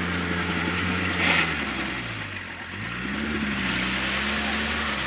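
Diesel engine of an off-road vehicle running under load: it holds steady, drops in pitch about two seconds in, then revs back up a second later and holds. There is a brief sharp noise just over a second in.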